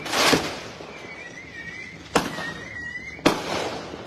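Fireworks going off: three sharp bangs, the first and loudest right at the start, then two more about two and three seconds in, each trailing off in a rolling echo.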